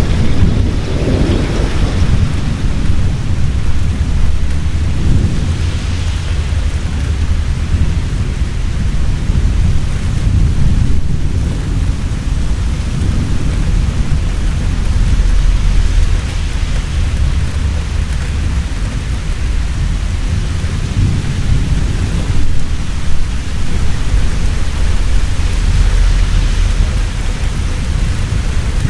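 Heavy rain falling steadily, with a low rolling rumble of thunder underneath that swells about halfway through and again near the end.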